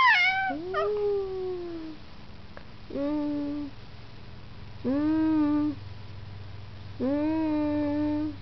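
Four-month-old baby girl making happy noises. A high squeal at the start falls away into a lower sliding cry, followed by three separate held 'aah' coos about two seconds apart.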